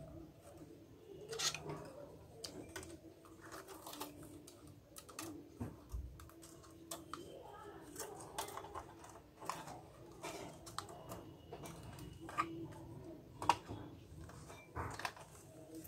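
Irregular light clicks and knocks of hard plastic printer parts being handled as the print-head carriage of an Epson ink-tank printer is fitted back onto its rail, with one sharper click about 13 seconds in.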